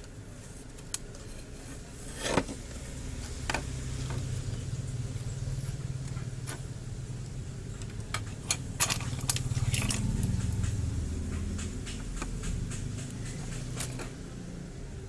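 Small metallic clicks and clatter of hands handling parts and tools on a PC motherboard, with a low hum through the middle.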